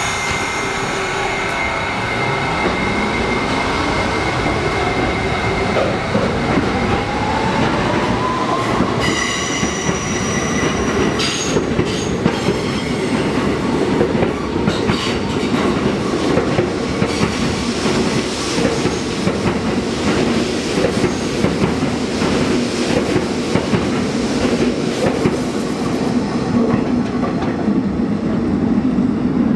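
R68 subway train pulling out and accelerating: its traction motors whine upward in pitch over the first several seconds. Then the wheels clatter steadily over the rail joints, with a steady rumble, as it runs along the elevated steel structure.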